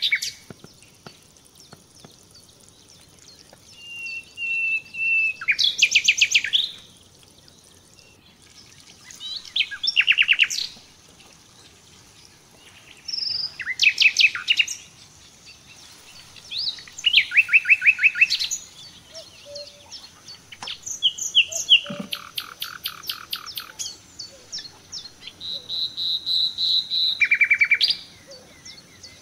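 A songbird singing: phrases of fast, high trills and chirps, each one to three seconds long, repeated about every four seconds.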